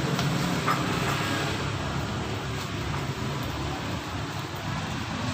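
Steady outdoor street ambience dominated by the continuous noise of passing road traffic.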